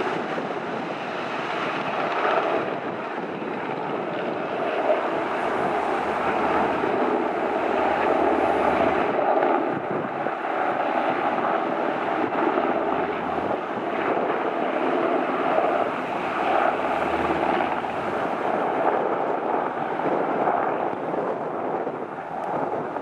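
Sikorsky S-70 Black Hawk helicopter at a distance, its rotor and twin turbines giving a steady rushing noise that swells and eases slightly without stopping.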